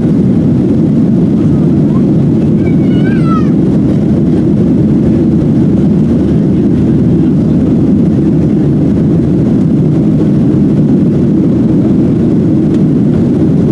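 Steady, loud drone inside the passenger cabin of a Boeing 737-700, from its CFM56-7 engines and the airflow. A faint high voice rises and falls briefly about three seconds in.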